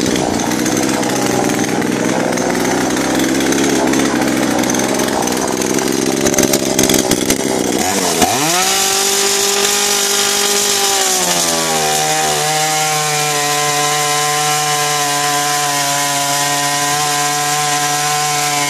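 Two-stroke UDT gasoline chainsaw running. About eight seconds in it revs up to a steady high pitch, which dips a little a few seconds later and then holds as the chain cuts through a log.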